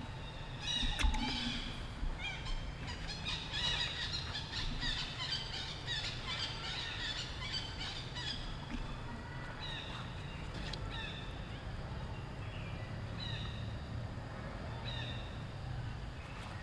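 Many short, high-pitched chirping calls in quick succession over a steady low rumble. About halfway through they thin out to single falling chirps every second or two.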